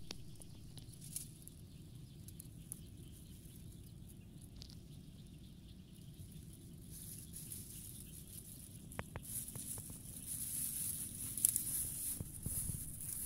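Faint outdoor ambience at a paddy's edge: a low rumble of the phone being handled, with a high steady hiss that grows louder from about halfway and a few soft clicks.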